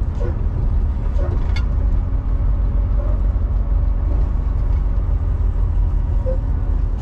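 Steady engine and road noise inside a semi-truck's cab while driving on a highway: a constant deep rumble.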